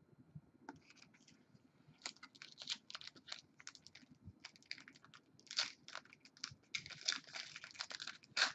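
Trading cards being handled: quick papery rustles and small crinkly clicks in a rapid, uneven run, starting about a second in.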